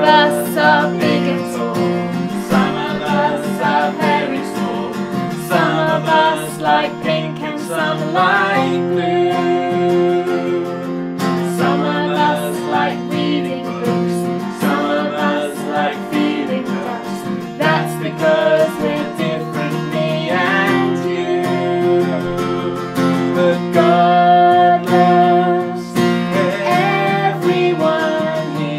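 Acoustic guitar strummed in a steady rhythm while a man and two young girls sing a children's worship song together.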